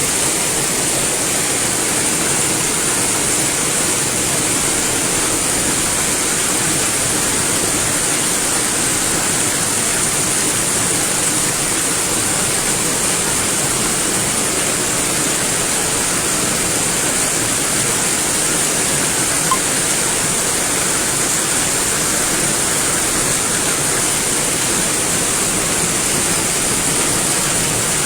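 Heavy rain pouring down as a loud, steady hiss.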